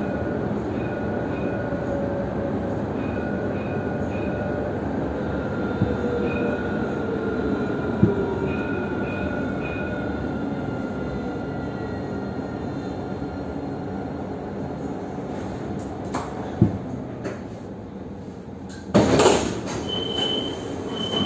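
A tram running, heard from inside the car: a steady rumble of wheels and drive with faint high squealing tones, and a motor whine that falls in pitch about a third of the way in. The running noise slowly fades as the tram slows. Near the end there is a loud burst followed by short repeated electronic beeps.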